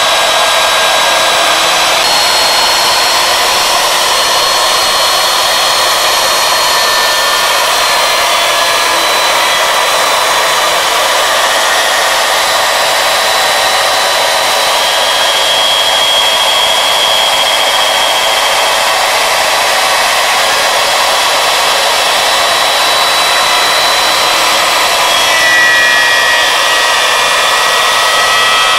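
Wood router running steadily at high speed as the spindle of a CNC lathe, its bit milling a slot into a wooden workpiece: a continuous high whine over a dense rushing noise.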